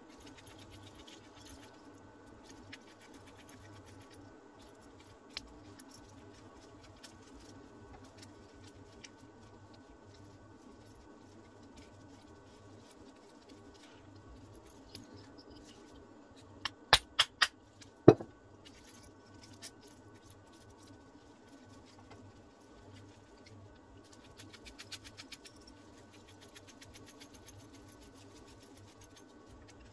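Small parts being handled: a 3D-printed plastic block and a steel screw, with faint scratches and ticks. A little past halfway come four sharp clacks in quick succession and then one louder knock, like hard parts striking a metal worktop, and later a short fast run of light ticks.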